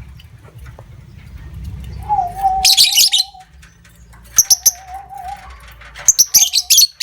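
Lovebirds chattering in shrill, harsh bursts, three spells of it, typical of the lovebird 'ngekek' trill. A lower warbling whistle wavers between the bursts.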